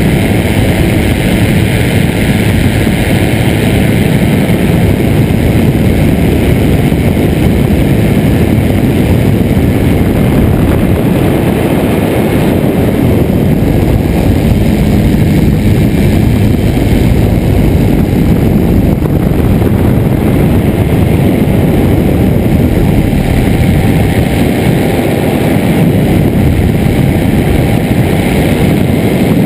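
Ultralight trike's Rotax engine and pusher propeller running steadily in cruising flight, mixed with heavy wind rush over the wing-mounted camera.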